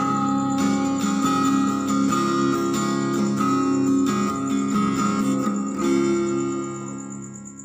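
Acoustic guitar strumming chords in a song's instrumental outro, the last strum about six seconds in and then ringing out and fading. A steady high cricket chirping runs underneath.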